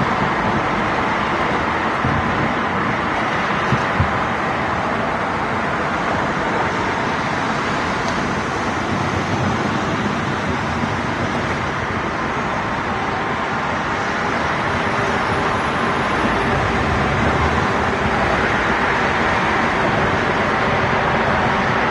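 Steady wash of road traffic noise, with two faint pops about four seconds in.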